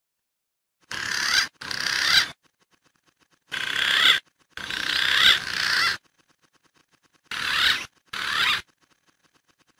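Green pigeon (punai) calls from a bird-lure recording: six short bursts of warbling calls in three pairs, with brief silences between them.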